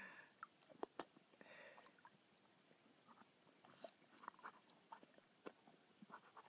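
Near silence, with faint, irregular clicks and small crunches.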